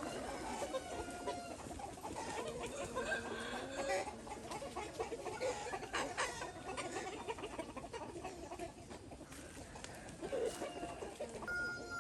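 A flock of chickens clucking and calling over one another, with a few sharp clicks mixed in.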